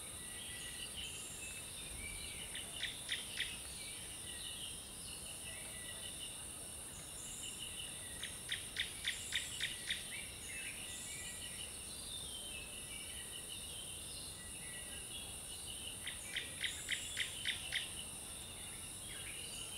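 Forest ambience: a steady high-pitched insect drone, with birds calling over it. Three times, a bird gives a quick run of short, sharp notes at about five a second: around 3 seconds in, around 9 seconds and around 17 seconds. Softer warbled bird notes run between the runs.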